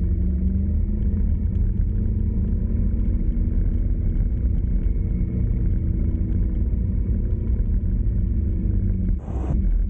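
Vehicle on the move: a steady low rumble of engine and road noise with an even hum. Near the end a brief burst of hiss cuts in for about half a second.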